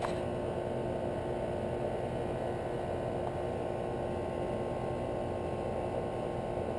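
Newly installed R407c air-conditioner condenser running: a steady hum from the compressor and condenser fan while the system is charged with refrigerant.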